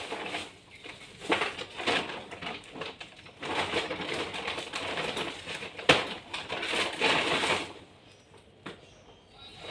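Crinkling and rustling of plastic as the white-wrapped air-conditioner refrigerant pipe is handled, coming in uneven spells, with one sharp click about six seconds in.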